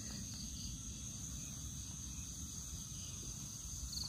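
Crickets trilling steadily at a high pitch, with a low rumble underneath.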